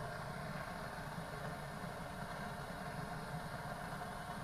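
Handheld gas torch flame burning steadily into a smoke tube packed with wood pellets, a low, even rumble as it lights them.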